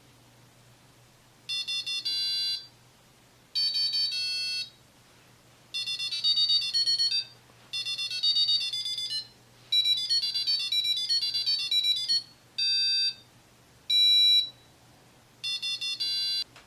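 Electronic alarm-clock buzzer driven by an Arduino, playing short beeping tone melodies in eight bursts with brief pauses between them, the notes stepping up and down in pitch.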